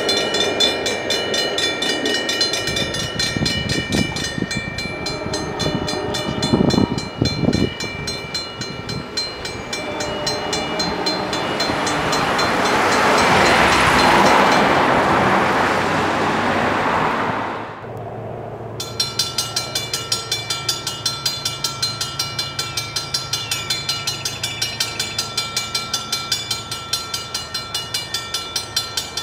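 Railroad grade-crossing warning bell ringing in fast, regular strokes. About halfway through, a car passes over the crossing, swelling and fading; then a second crossing's bell rings steadily through the last ten seconds while its gates are down.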